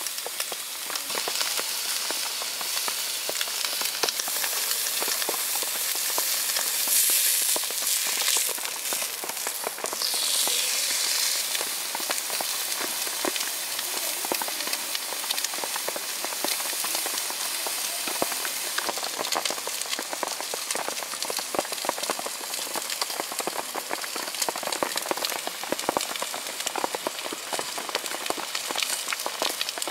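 Thick steak sizzling on a ribbed Tent-Mark Designs cast-iron grill plate: a dense, crackling hiss that swells for a few seconds about a quarter of the way in. Rain falls in the background.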